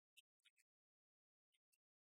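Near silence, broken by a few faint, very short clicks: three close together near the start and two more near the end.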